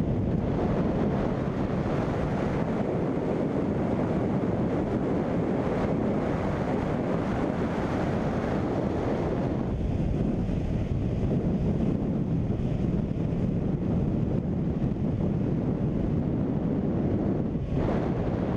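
Steady wind noise buffeting the camera microphone as it moves at riding speed along a road: a loud, even rush with no engine tone in it.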